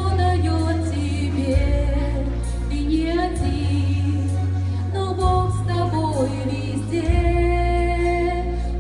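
Background music with singing: a vocal melody over sustained low bass notes that change every couple of seconds.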